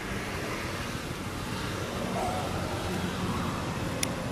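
Steady low rumble of vehicle noise, with a brief high squeak about two seconds in and a single sharp click near the end.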